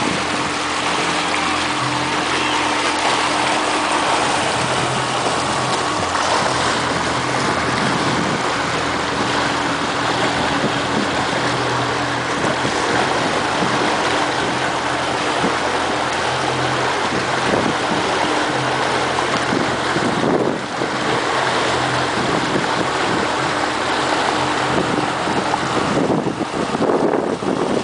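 Motorboat engine running steadily under way while towing a tube, with wake water rushing and wind buffeting the microphone.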